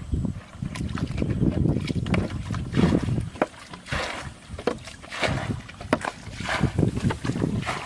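Water splashing and sloshing in irregular strokes, over a low rumble of wind on the microphone.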